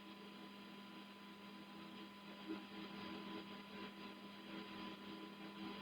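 Faint steady electrical hum with a thin high tone over quiet room tone.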